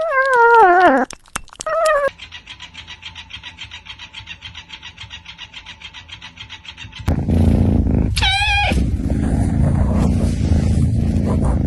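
Cat meowing in a long wavering meow and a short second one, then a fast, even pulsing for about five seconds. About seven seconds in a loud low rushing noise comes in, and a cat gives another short meow a second later.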